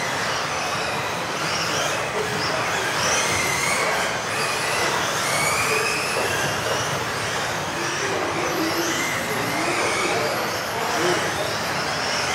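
Several electric 1:10 off-road RC cars with modified-class motors racing at once: their high-pitched motor whines rise and fall over each other as they accelerate and brake, over a steady hiss of tyres on the track.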